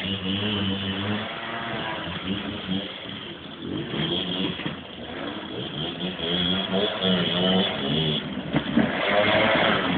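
Small moped and scooter engines revving, their pitch rising and falling again and again.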